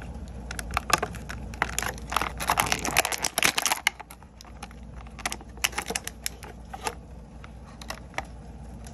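Clear plastic blister tray crackling and clicking as an action figure is pried out of it by hand. The crackling is dense in the first few seconds and thins to scattered clicks later.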